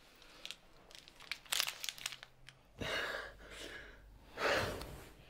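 Bedclothes rustling with small clicks, then two breathy swells about three and four and a half seconds in: a couple's heavy breathing in a love scene.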